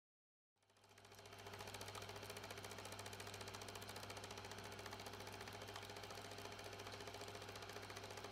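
Vintage film projector running: a rapid, steady mechanical clatter over a low hum, fading in about half a second in.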